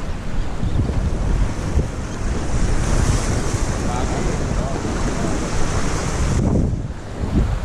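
Wind buffeting the microphone with a steady low rumble, over waves washing against the jetty's rocks. A high hiss in the mix cuts off suddenly about six and a half seconds in.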